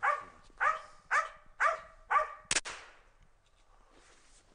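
Hunting Laika barking at a squirrel hidden in a tree: five barks, about two a second, each dropping in pitch. About two and a half seconds in comes a single sharp crack, a shot from the hunter's gun fired up into the tree.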